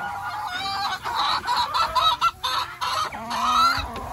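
A flock of bantam Polish chickens calling and clucking, several birds at once, busiest and loudest through the middle.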